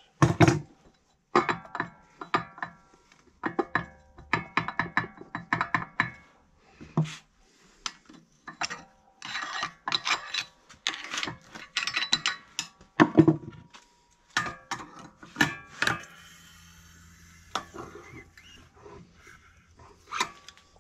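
Pliers clicking and scraping on the steel camshaft shaft of a Kohler Command engine as it is twisted to work it out of the block: repeated sharp metal clicks and scrapes with short ringing tones, coming in bunches with short pauses and easing off for a few seconds near the end.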